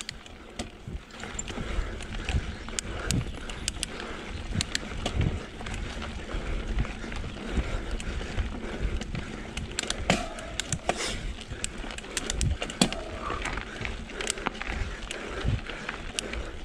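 Giant XTC mountain bike climbing slowly up a steep dirt forest trail: tyres rolling over dirt and roots, with many scattered small clicks and knocks from the bike.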